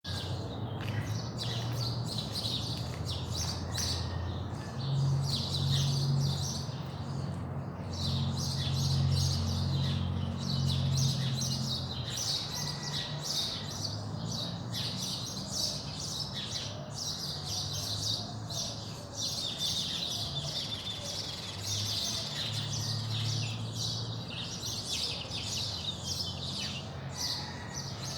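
Dawn chorus: many small birds chirping continuously in quick, overlapping calls. A low steady hum runs underneath, strongest in the first half.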